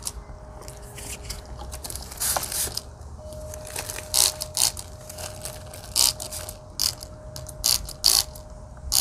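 Hand-pumped spray bottle squirting neem oil onto an amaryllis bulb and leaves: a series of short, sharp hissing sprays at irregular intervals, more frequent in the second half.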